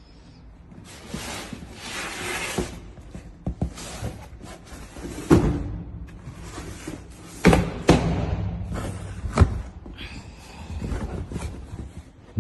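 Cardboard shipping box handled close to the microphone: scraping and rubbing, with a few sharp knocks about five, seven and a half and nine and a half seconds in.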